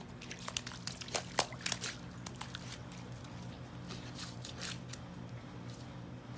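German Shepherd puppy's paws squelching and slapping in wet mud: irregular wet clicks and splats, busiest in the first two seconds and thinning out later, over a steady low hum.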